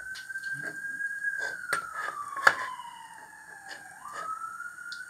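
A whistle-like tone that glides slowly in pitch, for a while two tones at once, one sinking steadily before jumping back up near the end, over light clicks and taps from small metal parts and a soldering iron being handled. One sharp click about halfway is the loudest sound.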